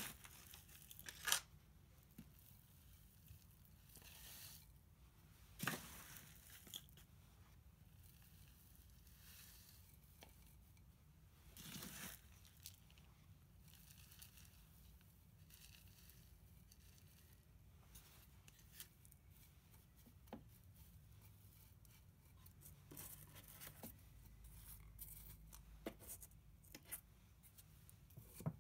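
Gritty, gravel-like potting mix scooped with a plastic scoop from a foil tray and poured into a terracotta pot: faint, scattered rasping scrapes, a longer pour lasting about a second partway through, and a cluster of small rustles near the end.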